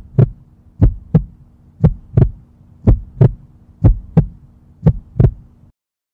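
Heartbeat sound effect: six double 'lub-dub' thumps about a second apart over a low steady hum, stopping suddenly near the end.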